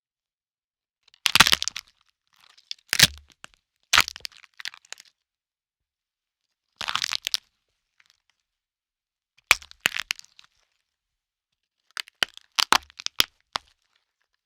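Bone-crack sound effect: a series of sharp, crunching cracks that come in about six separate clusters a second or two apart, with silence between them.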